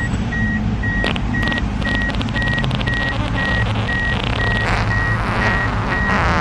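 A car's in-cabin warning chime beeping steadily, about two short high beeps a second, over low engine rumble, with a brief patter of small clicks in the middle.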